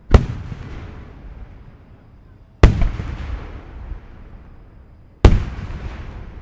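Aerial firework shells bursting in a star mine barrage: three loud booms about two and a half seconds apart, each followed by a rumbling echo that fades away.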